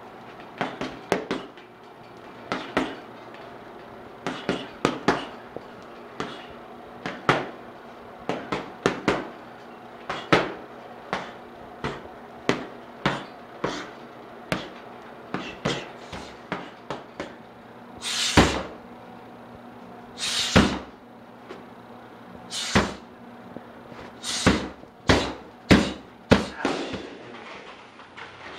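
Gloved punches and kicks striking a heavy bag and Thai pads in quick combinations of thuds and smacks, with the loudest smacks in the second half.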